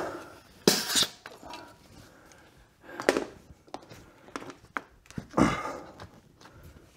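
Compressed air blowing into a dirt bike's rear tire in three short hissing bursts, with a few sharp clicks, as the tire is inflated to seat its bead on the rim.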